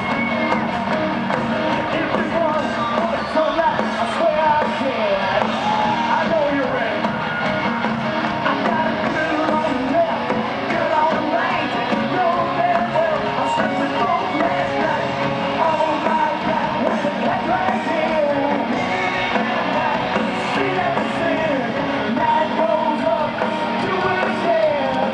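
A rock band playing live through a large PA: a male lead vocal over drums and electric guitar.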